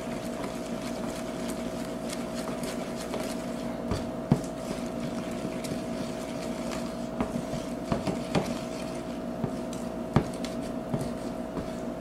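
Wooden spoon stirring a runny mixture in a plastic bowl, knocking and scraping against the sides now and then, over a steady hum.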